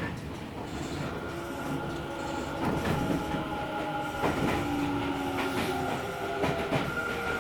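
Tokyo Metro 10000 series train running on the rails with a steady high whine and squeal, and a few sharp clacks of the wheels over rail joints.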